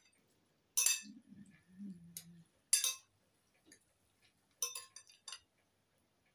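Metal fork and spoon clinking against a ceramic bowl: one sharp clink about a second in, another near three seconds, and a quick run of clinks around five seconds.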